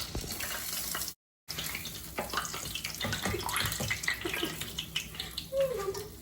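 Chicken pieces coated in crushed Cheetos frying in hot oil, a steady sizzle with many small crackles. The sound cuts out completely for a moment about a second in.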